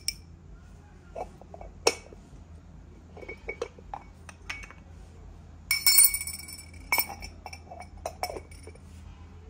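Ceramic canister with a bamboo lid and spoon being handled: scattered light knocks, and a ringing ceramic clink about six seconds in, the loudest sound, followed by a few more clinks.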